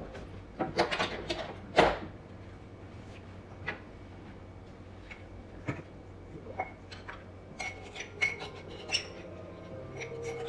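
Dishes and glassware clinking and knocking as they are handled, in scattered irregular knocks, several with a short ring; a cluster of knocks in the first two seconds includes the loudest.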